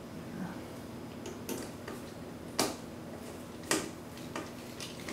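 A handful of short, sharp metallic clicks about a second apart, the loudest about two and a half seconds in: a screwdriver and small screws knocking against a metal motherboard tray as the board is screwed down.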